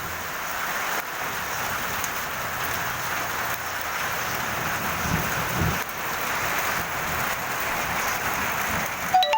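Steady rain falling on a garden, an even hiss without a break. A brief sharp click with a short tone comes just before the end.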